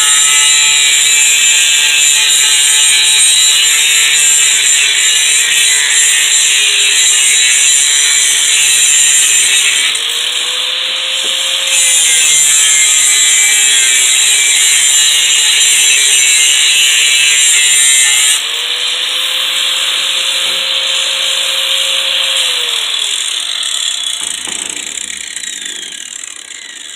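Angle grinder with a metal grinding disc grinding metal, a loud hissing grind over the motor's steady whine. The grind eases briefly about ten seconds in and changes again after about eighteen seconds. Near the end the grinder is switched off and winds down, its whine falling in pitch as it fades.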